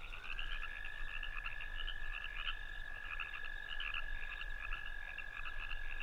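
Dusk chorus of calling animals in an open field: one long, steady trill is held for several seconds, with many short chirps scattered over it.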